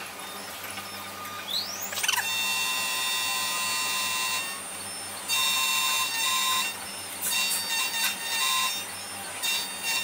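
Xhorse Dolphin XP-005 automatic key cutting machine milling a new key blank. The cutter's high whine rises about a second and a half in, then the cutting runs on and off in passes over a steady low motor hum.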